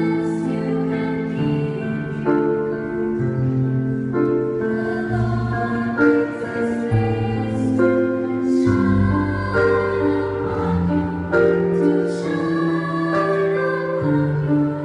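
A student choir of boys and girls singing a Christmas carol in sustained chords, with a low bass line moving underneath.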